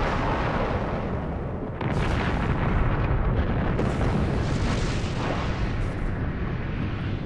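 Nuclear bomb test blast: a deep, continuous rumbling roar with a second surge about two seconds in.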